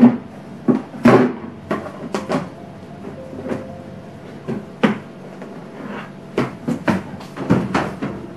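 Household items being handled: a string of separate knocks, clicks and short scrapes, one or two a second, like cupboard doors and containers being opened, moved and set down.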